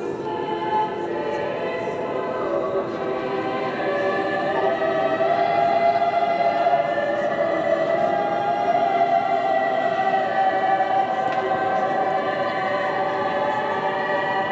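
Girls' choir singing slow, long-held chords in several parts in a large stone church, swelling louder a few seconds in.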